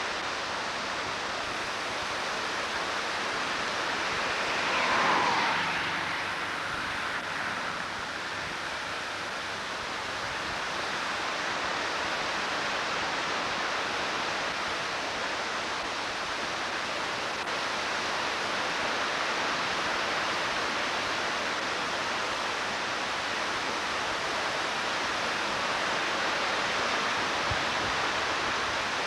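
Floodwater of Peshastin Creek rushing in a steady, continuous noise, with a brief louder swell about five seconds in.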